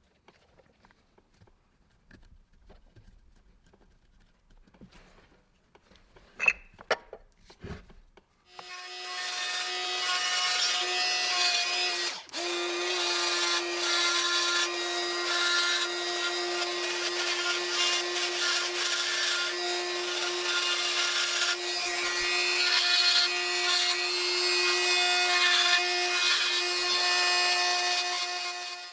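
Handheld rotary tool with a conical burr grinding the edges of a cast metal motor frame: a steady high whine over a grinding hiss that starts about eight seconds in, after a few quiet handling knocks, with a brief break around twelve seconds.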